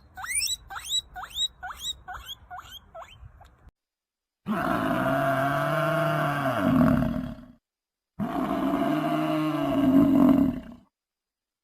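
A run of quick, high, upward-sweeping squeaky chirps, about three a second, followed by two long, loud roar-like animal calls of about three seconds each, with short silences between.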